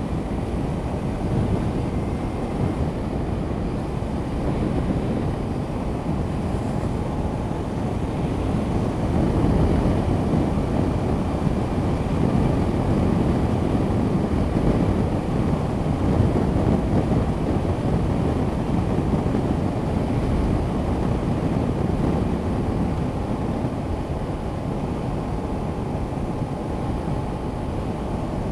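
Wind rushing and buffeting over the camera microphone on a Honda CB500X motorcycle at steady road speed, with the bike's parallel-twin engine running underneath. The rush swells a little in the middle.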